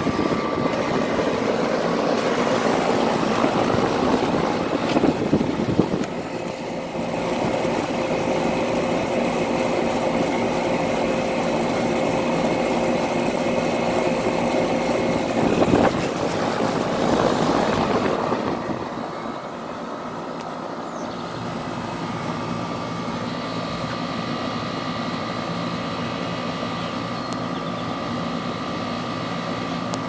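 Bryant central air conditioner's outdoor condenser unit running: a steady rush of air from its fan with a steady hum underneath. It is louder for the first part, then drops a little about eighteen seconds in.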